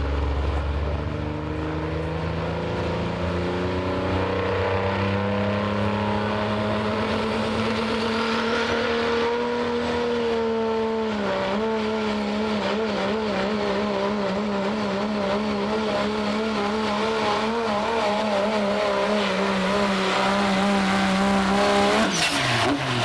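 Diesel 4x4 pulling truck under full power, dragging a pulling sled. The engine note climbs steadily for about ten seconds, dips briefly, then holds a high, wavering pitch before dropping off sharply near the end.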